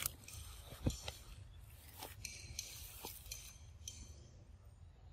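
A young macaque biting and chewing a ripe mango: soft wet clicks and smacks, the sharpest about a second in and others near two and three seconds. High chirping comes and goes in the background.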